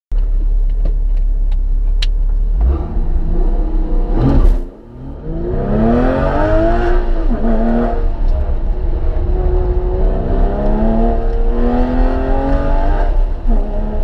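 2003 Porsche 996 Carrera 2's 3.6-litre flat-six heard from inside the cabin. It idles, then revs up as the car launches and pulls through the gears, its pitch climbing in each gear. The sound drops briefly at the gear changes, most sharply about four and a half seconds in.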